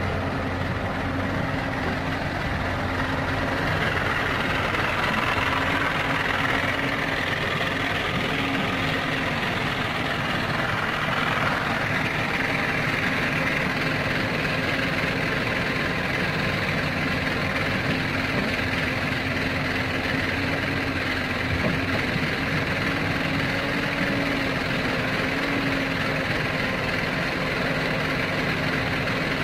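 Heavy diesel engines of a dump truck and a Hyundai 220 excavator running steadily, a constant low drone with no strong knocks or impacts.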